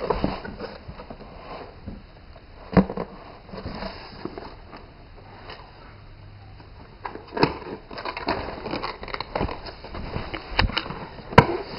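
Handling of a long cardboard box: scrapes, crackles and scattered knocks of the packaging as the contents are worked out, with sharp knocks about three seconds in, around seven and a half seconds, and near the end.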